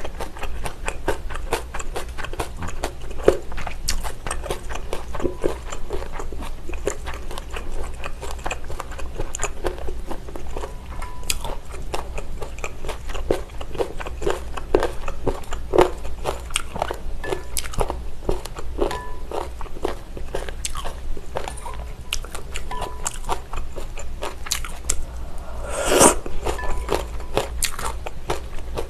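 Close-miked eating of abalone mulhoe, cold raw abalone with vegetables and noodles in a spicy broth: steady crunching and wet chewing with many small irregular clicks. One louder slurp near the end.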